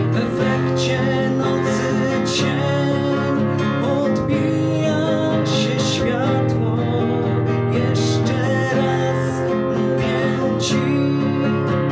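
Acoustic guitar strummed and picked in a steady, even accompaniment to a song.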